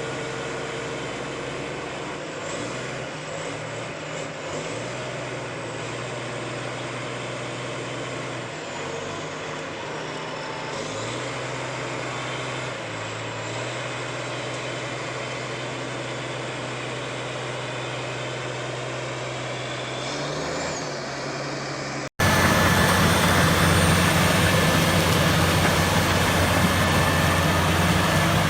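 Diesel engine of a Komatsu D85ESS bulldozer running, its pitch stepping up and down as the throttle changes. About 22 seconds in there is an abrupt cut to a louder, rougher engine sound.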